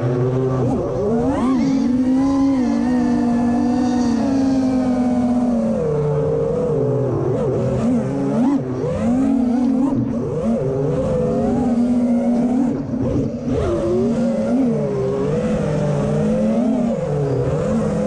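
FPV freestyle quadcopter's brushless motors and propellers whining, the pitch constantly rising and falling as the throttle is worked through the manoeuvres.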